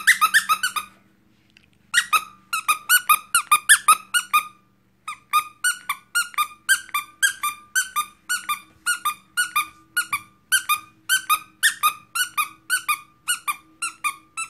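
Squeaky pineapple plush dog toy squeezed over and over, a steady run of short squeaks at about three a second, broken by two brief pauses in the first five seconds.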